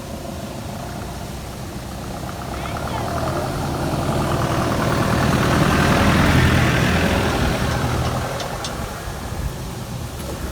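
Vehicle driving, its engine a steady low drone under a rushing noise that grows louder toward the middle and then eases off.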